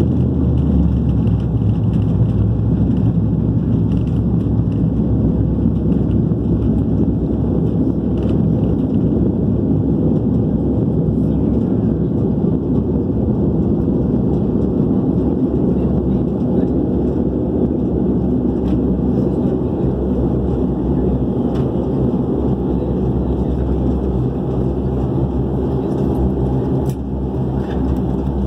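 Steady low rumble of an airliner heard from inside the cabin as it rolls along the runway after landing: engine and rolling noise, with a few steady low engine tones running through it.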